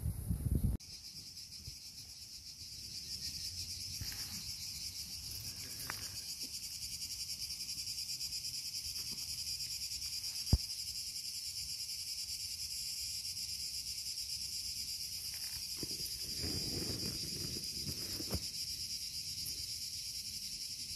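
A steady, high, buzzing chorus of cicadas starts abruptly just under a second in and holds on without a break. A single sharp click comes about ten seconds in, and a few soft low rustles and thuds come later.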